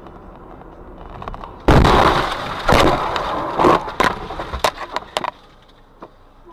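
A car crash: a sudden loud impact about two seconds in, followed by a quick string of sharp knocks and clatter that die away over the next three seconds.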